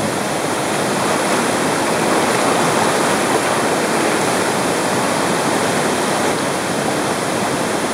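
Fast-flowing floodwater of an overflowing creek rushing over a submerged road and bridge: a steady, loud rush of water with no break.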